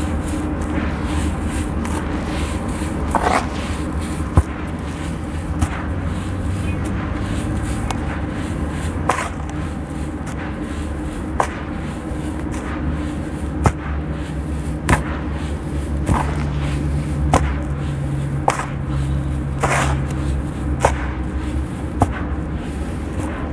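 Dry sand-and-cement mix poured through fingers and crumbled into a plastic tub: a continuous gritty hiss with scattered sharp ticks, roughly one every second or so, as small clumps drop and break. A steady low hum runs underneath.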